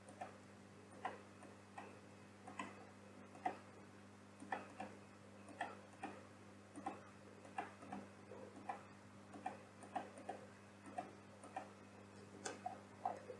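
Computer mouse button clicks and keyboard key taps, faint and irregular, about two a second with some in quick pairs, over a steady low electrical hum.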